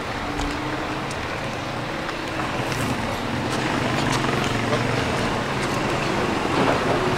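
Street traffic noise: a motor vehicle's engine running steadily, growing gradually louder through the second half.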